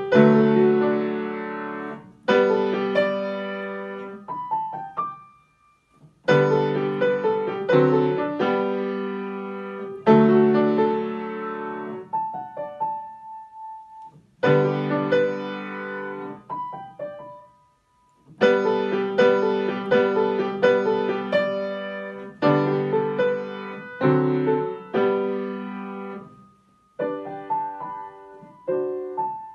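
Solo grand piano played in phrases, each opening with a strong chord that rings and fades, with short pauses between the phrases.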